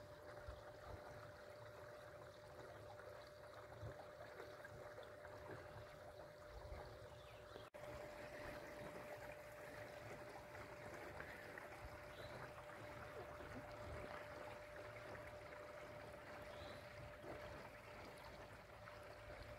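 Faint rush of water along the hull of a canoe under way, with the steady thin whine of a Torqeedo Travel 1103 electric outboard running at cruising speed.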